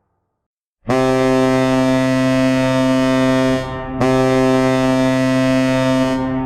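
NHL arena goal horn blowing in long blasts: one of nearly three seconds starting about a second in, a brief break, then a second of about two seconds, with a third starting right at the end.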